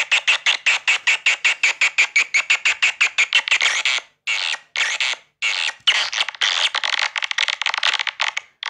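Swiftlet calls: a loud, rapid train of sharp chirps, about seven a second, with a few brief pauses partway through and near the end.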